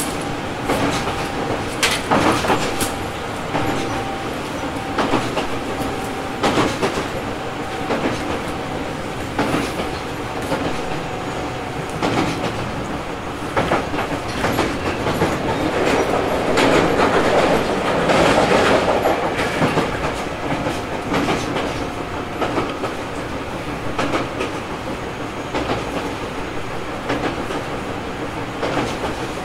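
Tobu 850-series electric train (motor car MoHa 854-1) running between stations, heard from aboard: steady rolling and motor noise with the wheels clicking over rail joints. The noise swells louder for a few seconds just past the middle.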